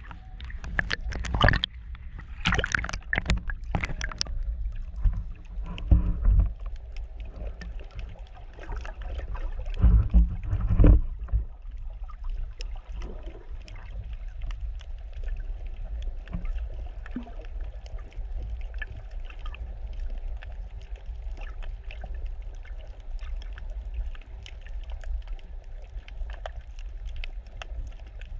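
Muffled underwater sound picked up through a GoPro's waterproof housing: a constant low rumble of water against the case. Splashes and knocks come in the first few seconds and again around six and ten seconds in, and after that the sound settles to a steadier wash with faint crackles.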